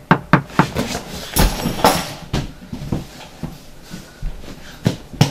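A rapid, irregular flurry of knocks and thumps with some scuffling, densest in the first two seconds, then scattered knocks near the end.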